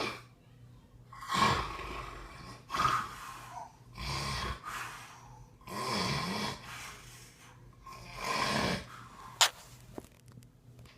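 A sleeping person snoring: five rasping snore breaths at uneven intervals of about a second and a half to two seconds. A single sharp click comes just after the last breath and is the loudest moment.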